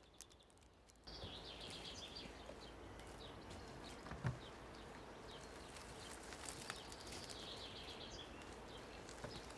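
Forest ambience with birds chirping, starting about a second in, with a single knock just past the middle.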